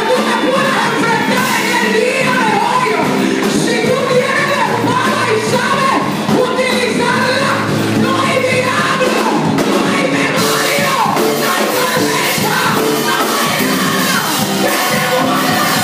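Live Christian worship music: women singing into microphones over a band with drums and percussion, loud and unbroken.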